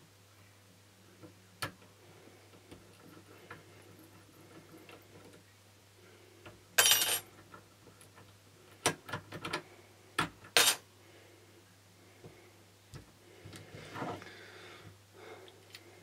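Brass Securit double euro lock cylinder and steel picks being handled and knocked against a bench vice: faint clicks early, a loud metallic clatter about seven seconds in, then a run of sharp clicks and a softer scrape near the end.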